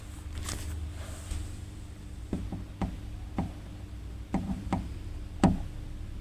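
Close-miked ASMR mouth sounds: a string of soft, short clicks and pops at an uneven pace, the loudest one near the end.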